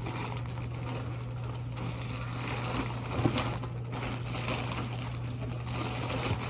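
Faint rustling of packaging being handled over a steady low hum, with one soft knock about three seconds in.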